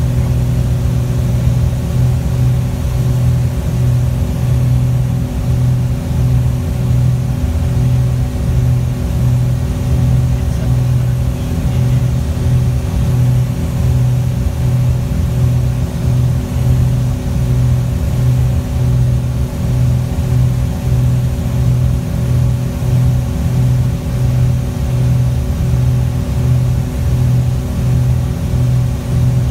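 Twin piston engines and propellers of a Piper PA-31 Navajo droning steadily in cruise flight, heard inside the cockpit, with an even pulsing beat about once or twice a second.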